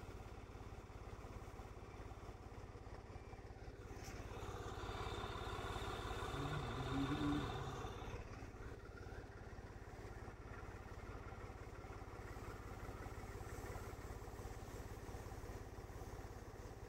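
Tractor engine running steadily, driving a crop-spray pump; it is faint and gets louder for a few seconds in the middle.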